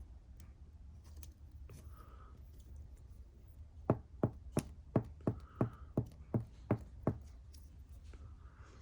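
A run of ten quick, evenly spaced knocks, about three a second, starting about four seconds in.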